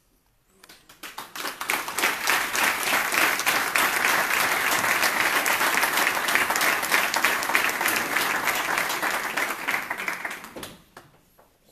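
A roomful of people applauding with hand claps. It builds up over the first second or so, holds steady for about eight seconds, then dies away near the end.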